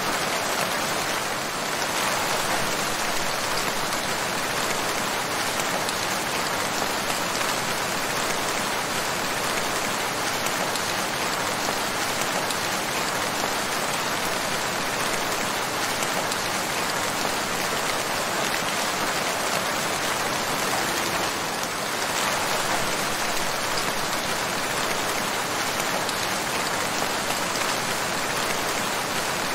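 Steady rain falling, an even, continuous hiss of many drops.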